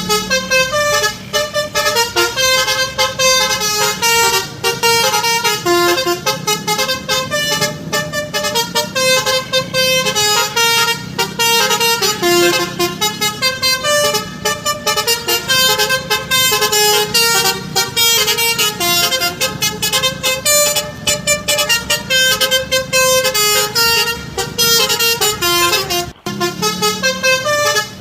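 Tour bus's Basuri telolet horn, a multi-trumpet musical horn, playing a tune of quick, stepping notes with barely a break. It cuts out briefly near the end.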